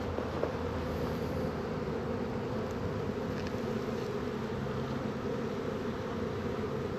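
Large honey bee swarm buzzing, a dense steady hum of many wingbeats.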